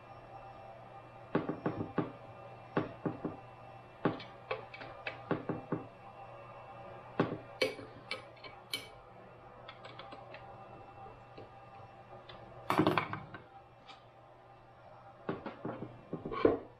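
Irregular metal clicks and knocks as the bolts of an aluminium end bracket on a steel mill table are tightened with a hex driver and the parts are handled. A longer clatter comes about two-thirds of the way through, and a sharp knock near the end.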